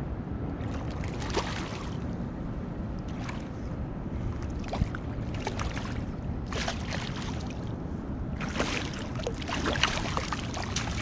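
A hooked striped bass thrashing at the surface beside the kayak, in several short bursts of splashing, over a steady wind rumble on the microphone.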